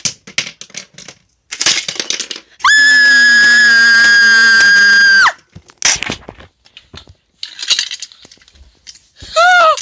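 Sharp clicks and knocks, then a loud, high, steady squeal lasting about two and a half seconds. More knocks follow, and a short voice-like sound comes near the end.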